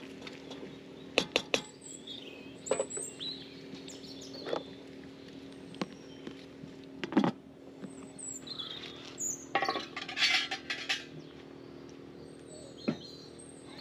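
Short, high bird chirps now and then over a steady low hum, with scattered sharp clicks and knocks and a brief hiss of rustling about ten seconds in.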